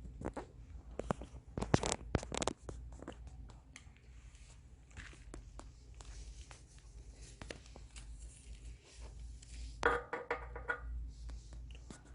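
Compressed firewood logs burning, with irregular crackles and pops that are densest in the first few seconds. A short squeaky sound comes about ten seconds in.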